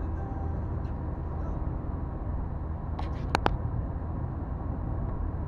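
Steady low road and engine rumble of a car driving at highway speed, heard from inside the cabin. A quick cluster of sharp clicks comes a little after three seconds in.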